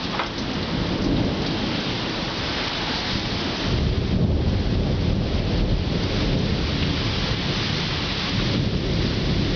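Heavy rain falling with a steady hiss. About four seconds in, a low rumble comes in and carries on under the rain.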